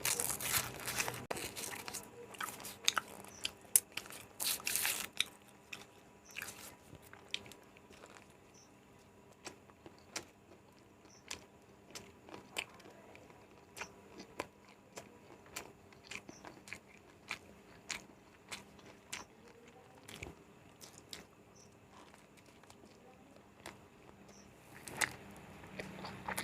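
A person biting into and chewing an egg roll close to the microphone. There are several crunchy bites in the first few seconds, then steady chewing with short clicks about one to two times a second.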